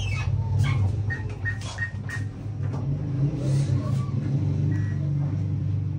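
ATM keypad beeping as keys are pressed: four short, even beeps in quick succession about a second in, as for a four-digit PIN, and a single beep near the end. A steady low hum sits underneath.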